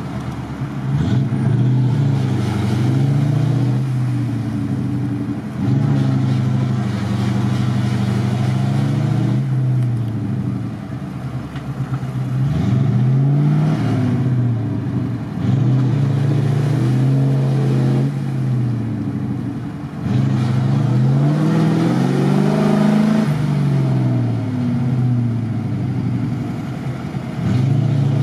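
GAZ-66 truck engine revving up and down in repeated surges, its pitch climbing and dropping every few seconds, as the truck works forward through deep mud and water.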